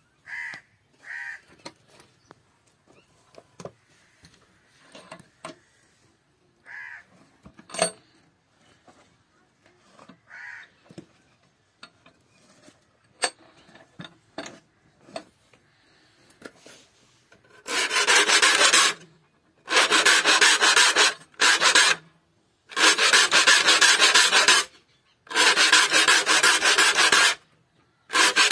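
A hand file rasps across the teeth of a hand saw clamped in a wooden saw vise, sharpening the teeth. Light handling knocks and clicks come first. About two-thirds of the way in, loud filing starts in runs of one to two seconds with short pauses between them.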